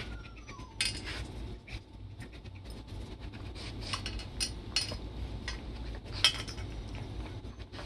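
Metal muffin tin clinking and knocking on a carpet as a Brittany spaniel puppy noses and pushes tennis balls in its cups, in irregular clinks with the sharpest about six seconds in.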